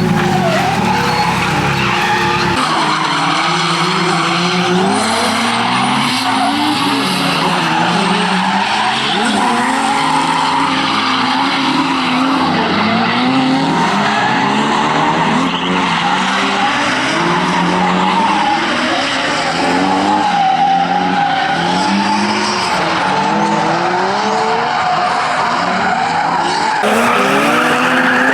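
Drift car's Nissan SR20 four-cylinder engine revving up and down over and over, with the tyres screeching as it slides.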